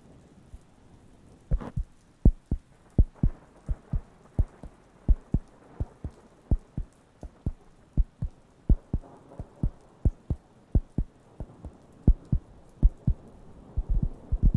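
Round wooden coaster tapped and patted with the fingertips right at the microphones, giving soft, low thumps about two to three a second, with a faint rustle between them. The tapping starts about a second and a half in.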